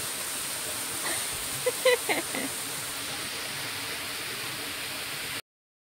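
Steady outdoor hiss, with a brief voice about two seconds in; the sound cuts off abruptly to silence near the end.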